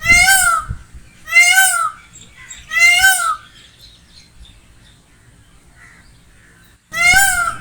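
Peacock giving loud, short calls that rise and fall in pitch: three in quick succession, then a pause of about four seconds before one more near the end.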